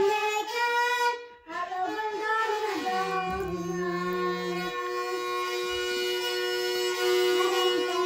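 A young boy singing, his voice turning through ornamented pitch bends and then holding one long note through the second half.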